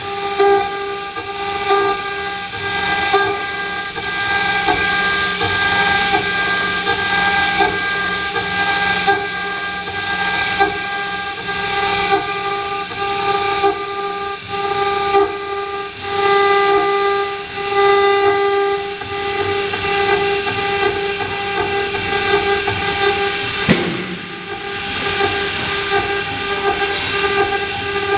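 Water-cooled 5.5 kW spindle of a heavy-duty CNC engraving router, whining steadily at a high pitch while its bit grinds into a wet granite slab; the cutting noise rises and falls as the tool moves through the stone.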